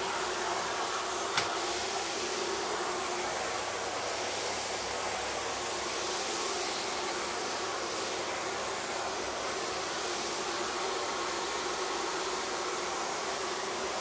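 Hoover A-Cubed Silence cylinder vacuum cleaner running at maximum power: a steady, even rush of motor and airflow, with one sharp click about a second and a half in.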